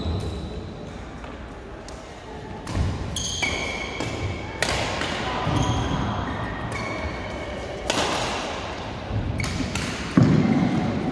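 Badminton rally: rackets striking the shuttlecock several times, a second or more apart, with short squeaks from shoes on the court floor.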